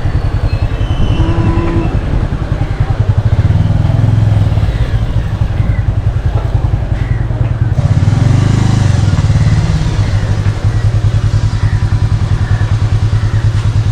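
Motorbike engine running steadily under the rider, with a brief rise and fall in revs about eight seconds in.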